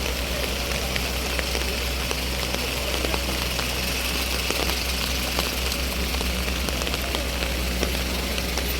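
Heavy rain falling: a steady hiss with many scattered drop taps, over a low steady engine hum.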